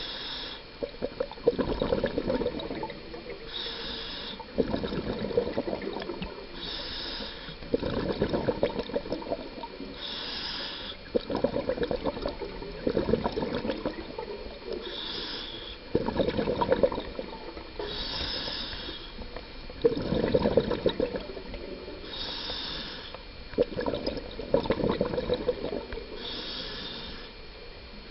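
Scuba diver breathing through a regulator underwater: a short hissing inhale, then a longer gurgle of exhaled bubbles, repeating about every three and a half to four seconds.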